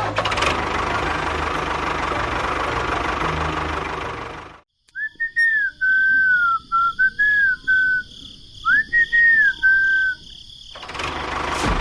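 A small motor runs steadily and cuts off abruptly after about four and a half seconds. A whistled tune of short notes gliding up and down follows, and the motor starts running again near the end.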